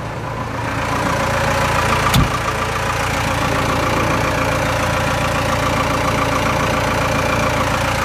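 Case 580M backhoe's diesel engine idling steadily, with a single thump about two seconds in.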